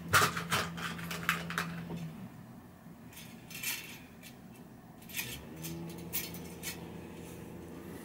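Bicycle wheel spokes clinking against each other and the rim as they are picked up and threaded into the hub and rim during lacing: a quick run of light metallic clicks in the first couple of seconds, then scattered clinks.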